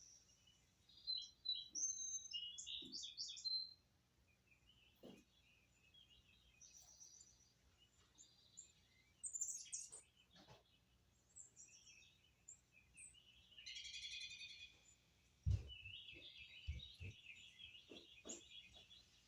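Birds chirping in short, high twittering runs, with a few soft knocks about two-thirds of the way through.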